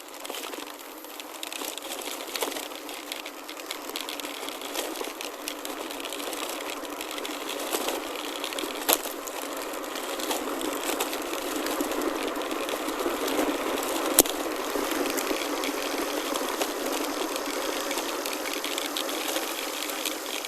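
Chromoly gravel bike rolling along a gravel road: a steady crunch of tyres on gravel with rapid ticking from the rear hub and the odd sharp click. It grows louder over the first half as the bike speeds up.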